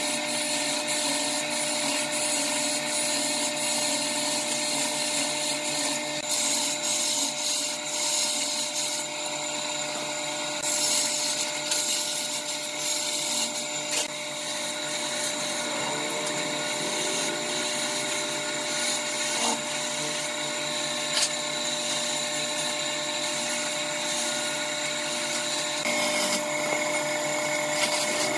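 Electric wood lathe running with a steady motor hum while a hand-held turning chisel cuts a spinning wooden spindle, a continuous hiss of shaving wood that grows and eases as the tool is moved along the piece.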